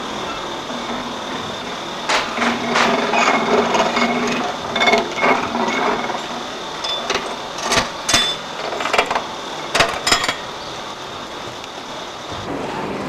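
Hand-cranked level-crossing barrier winch being wound to lower the barriers: an irregular clicking and rattling of the crank mechanism for several seconds, stopping about two seconds before the end.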